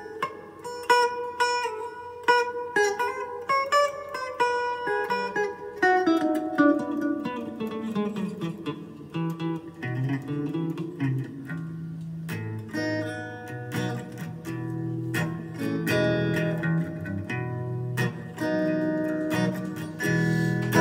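Electric guitar, a Fender Stratocaster played through a Fender amp, picking quick single-note lines. About halfway through the line walks down into lower, longer-held notes.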